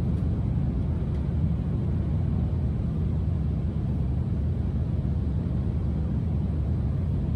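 Steady low road and wind rumble from a Mercedes eActros electric truck running at top speed. There is no engine note, only tyre and wind noise, because the truck is battery-electric.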